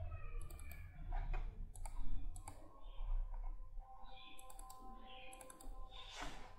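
Computer mouse clicking several times, in separate clicks spread out over a few seconds.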